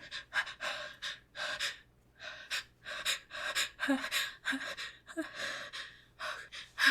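A woman's quick, repeated gasping breaths, about three a second with a brief pause near the two-second mark, some with a small voiced catch: the hitching breaths of a sneeze building up.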